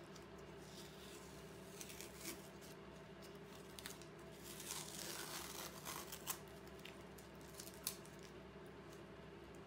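Masking tape being peeled slowly off the edge of paper: soft crackling rips, densest in the middle, with a couple of sharp snaps.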